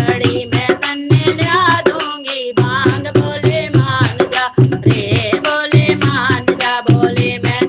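Indian folk devotional song: a steady hand-drum rhythm under a wavering, bending melody line.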